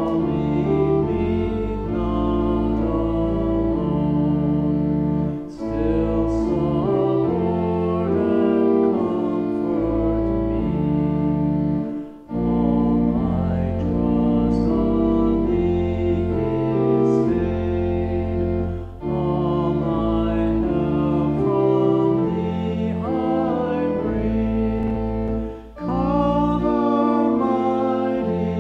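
Slow, meditative music of held chords over a low bass line, with voices singing, in phrases separated by brief pauses about every seven seconds.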